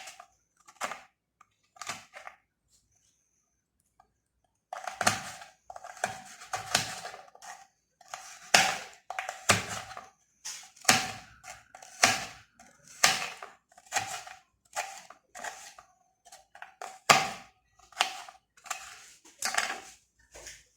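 Knife chopping fruit into small pieces against a hard kitchen surface. After a short pause there is a steady run of sharp taps, roughly one a second, each with a brief ring.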